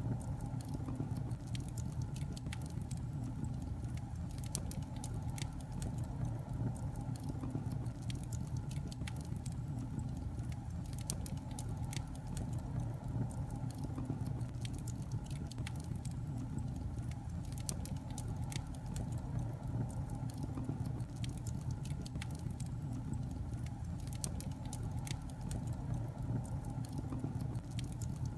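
Wood fire burning in a fireplace: a steady low rush of flames with frequent small crackles and pops.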